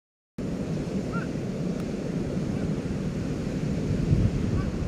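Ocean surf breaking on a beach, a steady low roar mixed with wind rumbling on the microphone, cutting in abruptly just after the start.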